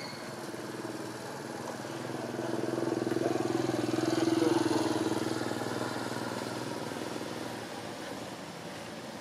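A motor vehicle passing by: a steady engine hum that swells to its loudest about halfway through and then fades away.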